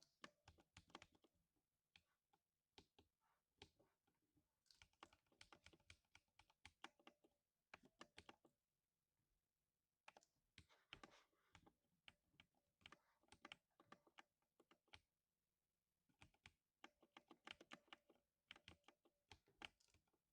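Typing on a lubed 60% mechanical keyboard: quick runs of soft, deep keystrokes (thock) in bursts of a few seconds, with brief pauses between them.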